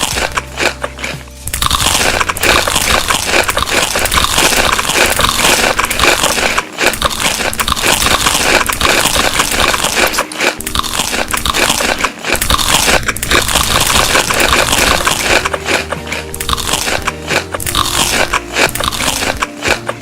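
Close-miked crunching and chewing of crunchy food: dense crackly bites, loud throughout and strongest from about a second and a half in.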